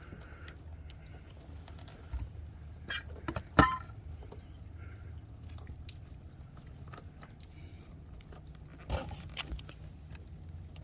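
Small plastic clicks and rattles of wiring connectors being handled and pushed together, with one sharp click about three and a half seconds in and a few more near the end.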